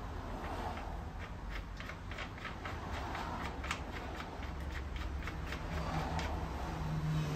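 Light metallic clicking and rubbing as a washer and nut are threaded by hand onto a motorcycle's fork top clamp: a quick, irregular run of small clicks over a steady low hum.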